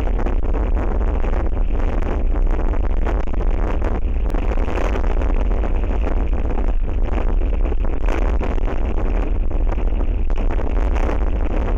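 Strong wind buffeting an outdoor camera microphone: a steady, loud, low rumbling rush of noise.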